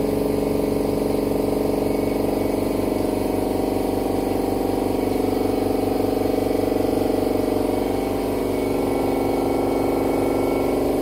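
Radiator power-flushing machine's electric pump running steadily, forcing water through the central-heating radiator circuit. It hums with a fast, even pulsing underneath, and its pitch shifts slightly about eight seconds in.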